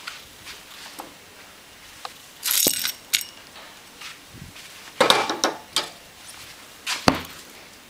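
Small metal screws clinking and rattling against each other as they are tipped onto a cloth rag and rubbed dry, in three short spells.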